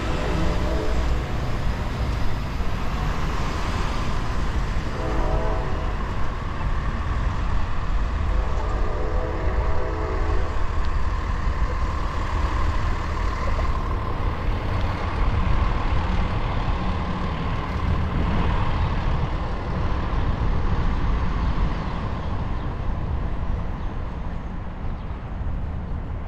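Train horn sounding in blasts over a steady low rumble: one ending just after the start, a short one about five seconds in, and a longer one from about eight to ten and a half seconds in.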